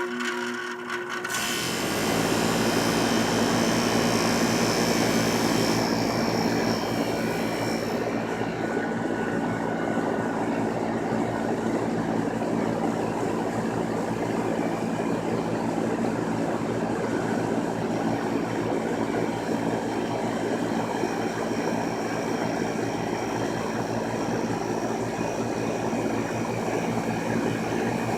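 Lennox air conditioner starting up: a brief hum, then about two seconds in the compressor and fan come on and run steadily with a low hum under a rush of air. A sharper hiss rides on top for the first several seconds and then eases.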